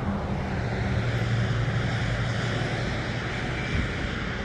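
Steady low drone of a distant engine: a constant hum that holds one pitch, over a light hiss.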